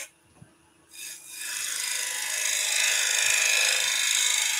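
Turning tool cutting into wood spinning on a lathe, a steady hissing scrape. It breaks off at first and resumes about a second in. The cut is forming a small dovetailed foot for chuck jaws to grip. A faint steady hum of the lathe runs underneath.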